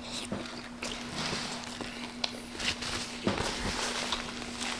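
Close-miked chewing of a mouthful of cheeseburger: scattered wet mouth clicks and smacks. Paper crinkles near the end.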